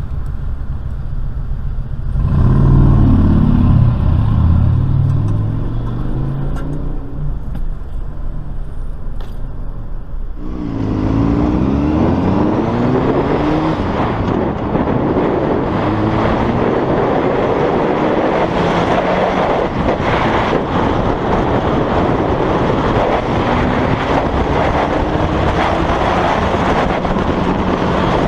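Low vehicle engine rumble, then from about ten seconds in a sport motorcycle's engine accelerating, its pitch climbing in several rising sweeps as it goes up the gears, under heavy wind noise.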